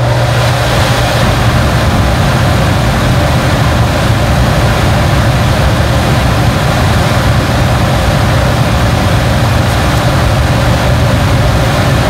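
Furnace blower fan running and moving air: a loud, steady rushing with a low hum under it, starting up just as the sound begins. It is the blower, which had not been running, working again after the repair.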